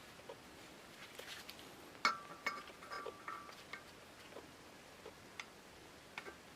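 Light clicks and taps of small metal lantern parts being handled, with a louder metallic clink about two seconds in that rings briefly.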